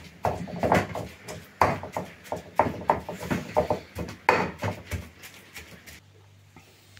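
Wooden pestle pounding and mashing the paste for gazpacho majado in a bowl: a run of dull knocks, about two or three a second, that stops about five seconds in.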